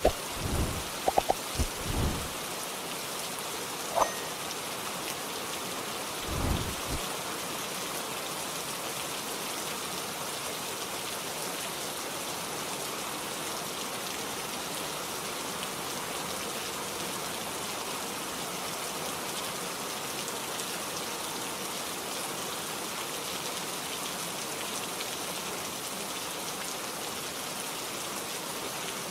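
Steady rain falling, an even hiss, with a few low thumps in the first two seconds, a sharp click about four seconds in and a short low rumble about six seconds in.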